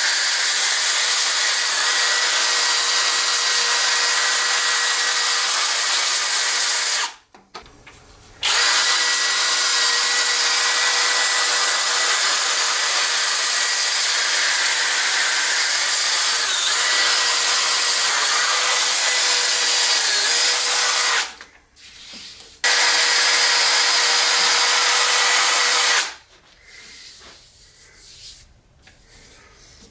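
Cordless drill running a pad against a resin-and-wood orb turning on the lathe: a steady motor whine with the rub of the pad. It cuts out twice for about a second, about seven and twenty-one seconds in, and stops for good about twenty-six seconds in, leaving only faint handling sounds.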